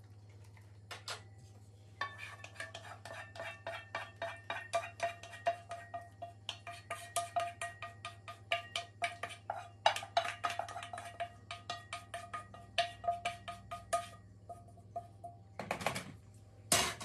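A wooden spoon scraping and tapping white sauce out of a saucepan into a pot, in a quick run of strokes about four to five a second that starts about two seconds in, with the pan ringing under them.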